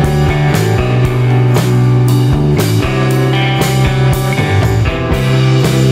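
Background rock music with guitar and drums, at a steady beat.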